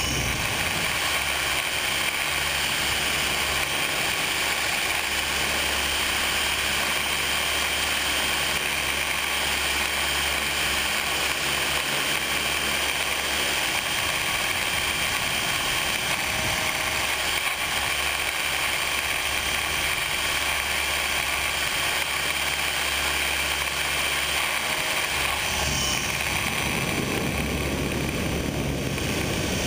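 Radio-controlled model helicopter's motor and rotor heard from a camera mounted on the helicopter in flight: a steady high whine over a low hum.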